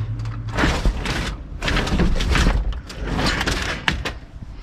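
Ratchet tie-down strap being cranked tight over a load of scrap metal in a pickup bed: a series of short ratcheting strokes, roughly two a second.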